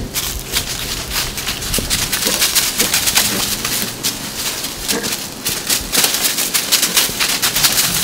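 White-tailed buck moving fast through dry fallen leaves: a dense, irregular crunching and rustling of hooves in the leaf litter.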